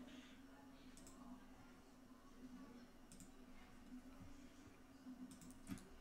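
Near silence: faint room hum with a few soft computer mouse clicks, one about a second in, another around three seconds, and a small cluster near the end.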